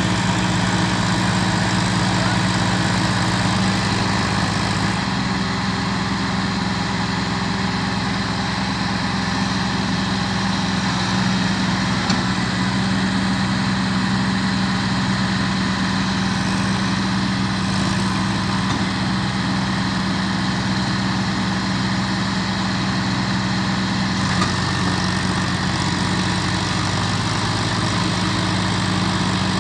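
Diesel tractor engines, a John Deere and a Massey Ferguson, running steadily under load as they pull a laden sugarcane trolley stuck in wet mud. The engine note shifts about five seconds in and again near the end.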